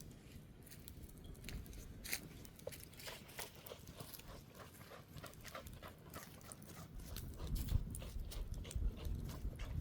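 Wood campfire crackling, with many sharp pops and snaps. Wind buffets the microphone with a low rumble that gets louder about two-thirds of the way through.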